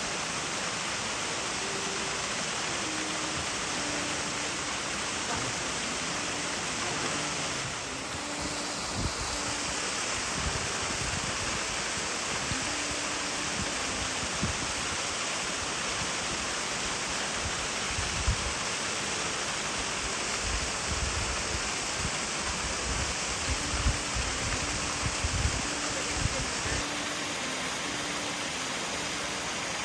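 Waterfall rushing: a steady, even roar of falling water, with scattered low bumps on the microphone from about ten seconds in.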